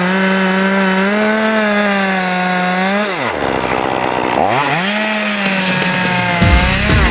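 Hitachi CS38EK two-stroke chainsaw running at high revs. About three seconds in the throttle is released and it drops to idle, then it revs back up about five seconds in. Near the end a jumble of low knocks joins in.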